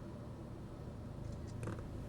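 Steady low rumble inside a stopped vehicle, with a few faint clicks about one and a half seconds in.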